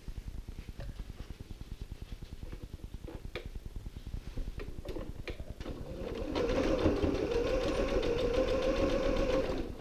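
Domestic sewing machine running and stitching for about three seconds, starting a little past halfway and stopping just before the end, as an elastic loop is sewn onto the corner of a fabric panel. Before it, a few light taps as the fabric is positioned under the presser foot.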